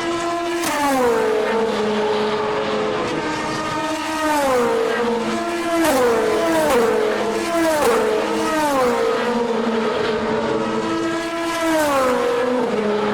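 Race cars passing one after another at speed, each engine note dropping in pitch as the car goes by, about seven or eight passes over a steady background of engine noise.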